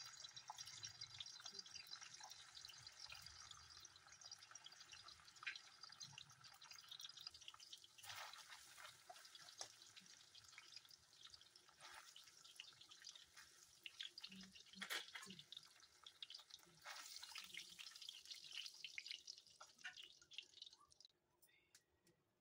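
Paneer cubes faintly sizzling and crackling in hot oil in a kadai, with the scrape of a spatula now and then as they are turned. The sizzle stops near the end.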